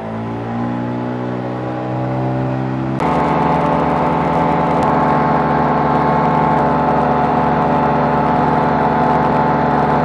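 Twin Yamaha outboard motors getting under way: the engine note rises steadily for about three seconds, then jumps abruptly to a louder, steady run at speed, with the rush of the wake beneath it.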